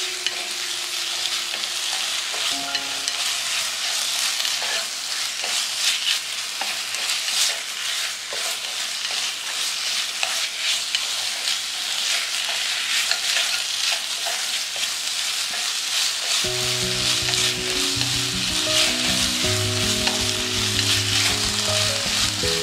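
Chicken pieces sizzling and crackling as they stir-fry in an electric pan without added oil, turned with chopsticks. Background music comes in about three quarters of the way through.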